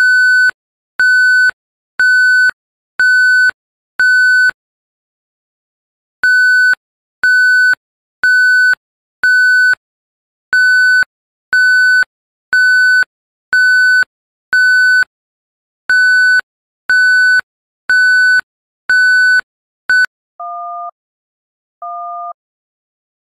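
Loud electronic beeps: a single steady high tone repeated about once a second, in groups of four or five with short pauses between. Near the end come two quieter, lower two-note beeps.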